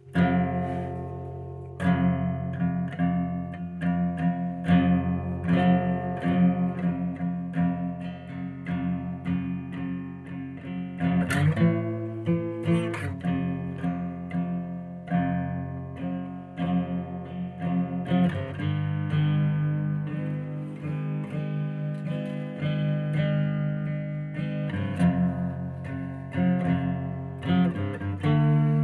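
Guitar played with repeated plucked notes ringing over sustained low tones, with a sliding sweep in pitch about eleven seconds in.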